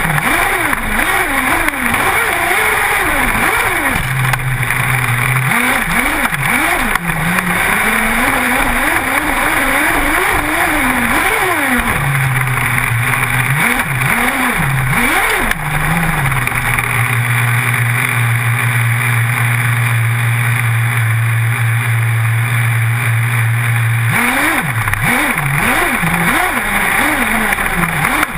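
Small combustion engine of a radio-controlled off-road car, heard from a camera mounted on the car, revving up and falling back over and over as it is driven on dirt, with a steady stretch at constant throttle from a little past halfway until near the end. A constant rushing noise runs underneath.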